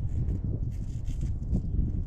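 Gusty wind buffeting the microphone with an uneven low rumble, mixed with short rustling and rubbing noises.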